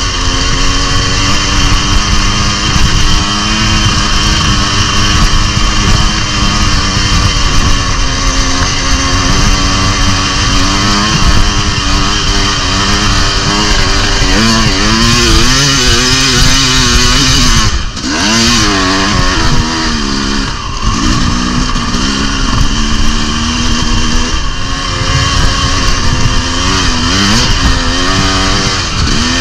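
Dirt bike engine running hard, its pitch rising and falling again and again as the throttle is worked, with a constant loud hiss under it and a brief drop in loudness about eighteen seconds in.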